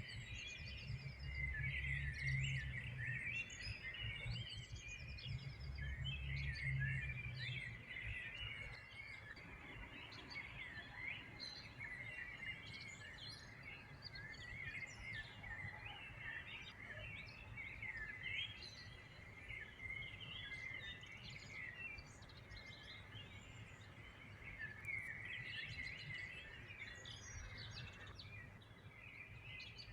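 Many small birds chirping and singing at once, a dense chorus of short overlapping calls and trills. A low hum comes in twice during the first eight seconds.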